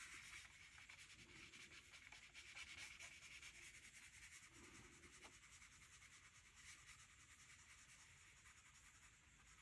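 Near silence: room tone with faint rubbing and handling sounds.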